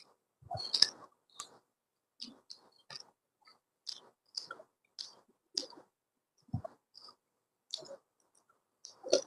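A person chewing and eating: short wet smacks and clicks, roughly two a second with quiet gaps between, a louder one about a second in and another near the end.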